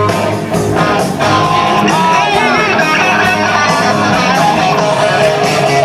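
Live rock band playing through a PA, electric guitar prominent with a voice singing over it.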